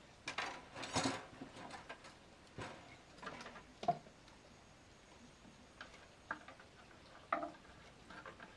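Scattered light knocks and clicks at irregular intervals, the sharpest about four seconds in and another near the end.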